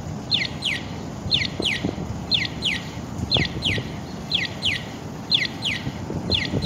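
Electronic chirping of a pedestrian crossing signal: a pair of short falling chirps repeating evenly about once a second, over a low rumble of wind and street noise.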